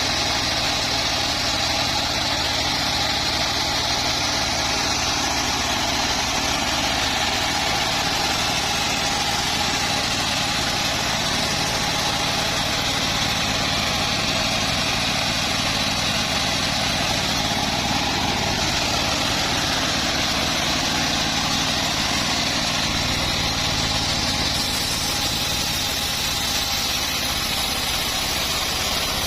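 Homemade bandsaw sawmill running steadily, its motor and blade making a loud, even machine noise that does not change.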